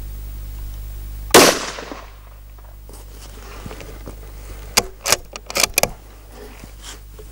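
A single shot from a Ruger 77/22 bolt-action rifle in .17 WSM rimfire about a second in, a sharp crack with a brief echoing tail, fired while sighting in the scope. A few seconds later a quick run of metallic clicks as the bolt is worked to eject the case and chamber the next round.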